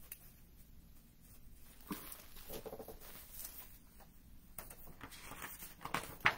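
Faint handling noise in a quiet room: a few soft rustles and taps, with a sharper click just before the end.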